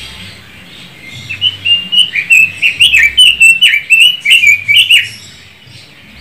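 Red-billed leiothrix (Pekin robin) singing a fast warbling phrase of many short, quickly changing notes. It starts about a second in and stops after about four seconds.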